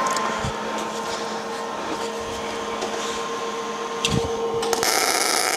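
Steady machine hum, a knock about four seconds in, then a MIG welding arc striking near the end and running evenly for a short tack weld on steel.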